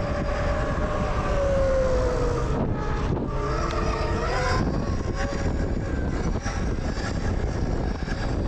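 Zero FX electric motorcycle riding, its motor whining under heavy wind rush on the microphone. The whine falls in pitch over the first two seconds and fades out about halfway through.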